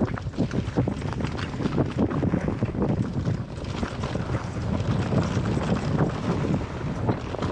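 Mountain bike riding down a rocky trail: tyres crunching over gravel and stones, with dense irregular rattles and knocks from the bike, and wind buffeting the microphone.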